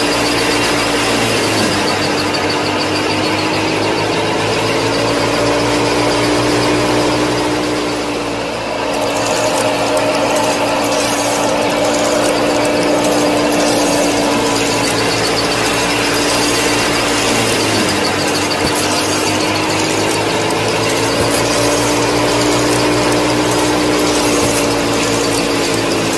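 Small electric motor running with a steady whine. Its pitch sags and recovers three times.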